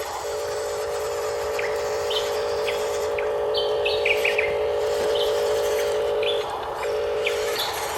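Steady electric motor hum from a radio-controlled construction model, which drops out briefly about six and a half seconds in. Birds chirp repeatedly over it in short, quick calls.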